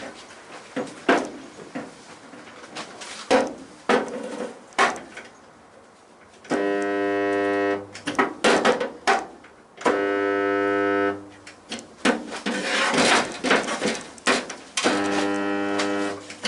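A welder putting in short spot welds: three steady electrical hums of about a second each, with sharp clicks and a stretch of crackling between them.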